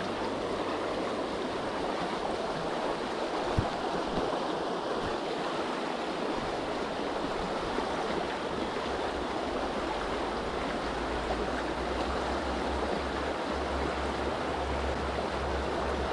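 Small river flowing over stones, a steady even rush of water. A single sharp click about three and a half seconds in, and a low rumble joins in the last few seconds.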